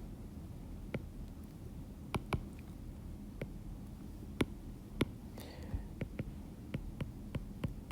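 About ten light, scattered clicks from computer input as text is selected and highlighted on screen, over a low steady hum.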